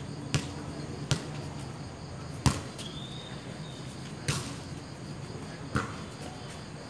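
A volleyball being struck during a rally: five sharp slaps of hands and forearms on the ball, one to two seconds apart, the loudest about two and a half seconds in.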